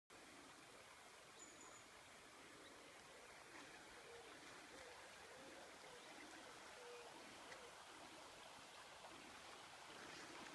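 Faint, steady rush of a small river's flowing water, with a few soft, low bird calls in the middle and a single brief high chirp near the start.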